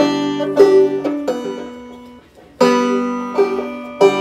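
Banjo being strummed slowly: a handful of chords, each struck sharply and left to ring and fade before the next.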